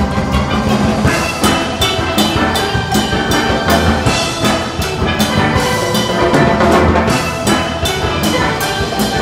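Steel band music: steel pans playing a bright melody over drums and percussion with a steady beat.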